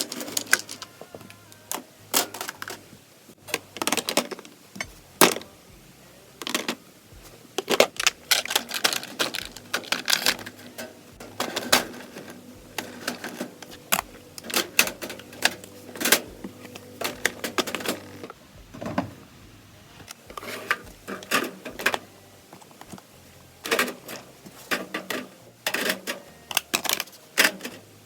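Irregular clicks and clatters of makeup containers being set down, shuffled and sorted into plastic drawers.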